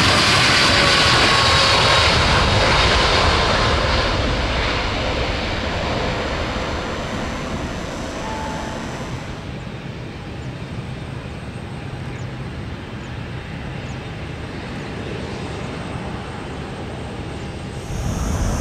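Boeing 787-8 jet engines at takeoff thrust, a rumble with a falling whine, as the airliner lifts off and climbs away. The sound fades over several seconds into a steady, quieter distant roar, and a louder rush of noise comes in near the end.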